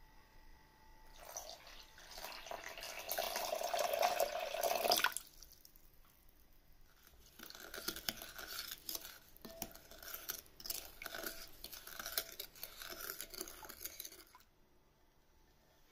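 Water poured into a glass bowl of potato starch and sugar, building up and stopping suddenly about five seconds in. Then a wooden spoon stirs the starchy liquid, with irregular scrapes and taps of the spoon against the glass bowl.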